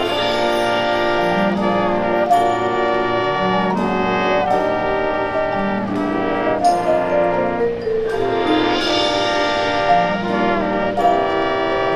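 Marching band brass section playing slow, sustained chords that change every second or two, coming in loud right at the start after a quieter passage. A few sharp percussion hits punctuate the chords.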